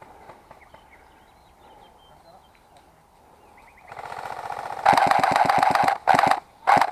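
Airsoft electric gun firing on full auto: a rapid rattling burst of about a second, then two short bursts.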